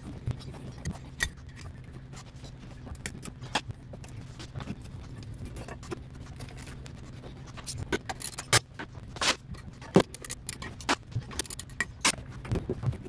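Scattered light metallic clicks, clinks and scrapes of hands and a hand tool working at an engine's fan belt and alternator, busier in the second half, over a steady low hum.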